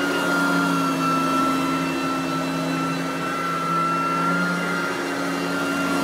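Riccar Supralite Sand Trap upright vacuum running on carpet: a steady motor hum with a high whine over the brush-roll and airflow noise, the level rising and falling a little as it is pushed.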